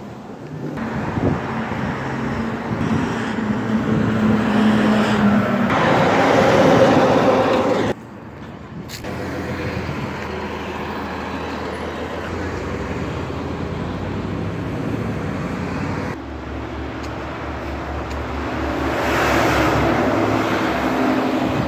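City street traffic: vehicle engines and tyre noise as a city bus and cars pass close by, swelling and fading with each passing vehicle. The sound drops off abruptly about eight seconds in.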